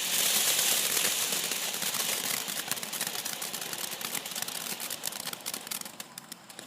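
A small ground firework (a 'short stack') going off: a loud spraying hiss full of rapid crackles, strongest at first and easing slightly as it keeps burning.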